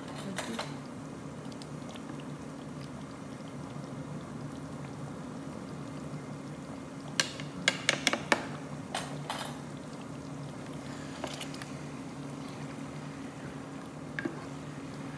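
Chicken korma simmering in a pot while a slotted spatula stirs the thick sauce, over a steady low hum. The spatula makes a cluster of sharp clicks and taps against the pot about seven to nine seconds in, and a few more near the start and the end.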